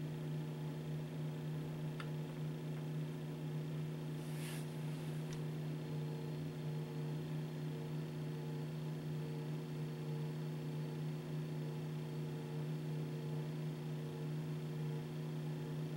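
Steady electrical hum, a low tone with several higher ones over a faint hiss, with a brief hiss about four seconds in and a couple of faint clicks.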